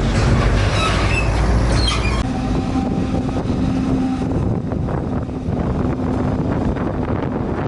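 Heavy farm machinery running during corn chopping: forage harvester and tractor engines with a loud, steady drone. The deepest rumble drops away about two seconds in, leaving a steady hum.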